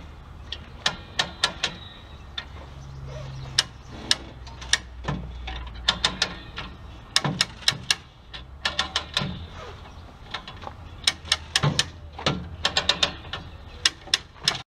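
Hand come-along winch ratcheting in quick runs of sharp clicks as its handle is pumped, pulling the engine, transaxle and cradle out by chain, over a steady low hum.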